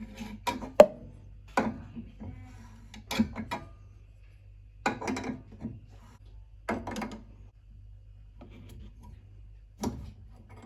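Ideal Logic 30 gas boiler making a strange noise: short, irregular knocks or rattles every one to two seconds over a steady low hum.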